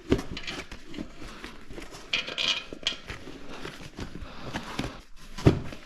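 Scattered knocks and clinks of metal on metal as a motorcycle tire is worked on its rim with tire levers, with a short scrape about two seconds in and a sharper knock near the end.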